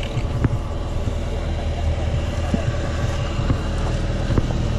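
Motor boat's engine running steadily with a low drone, and a few light knocks on top.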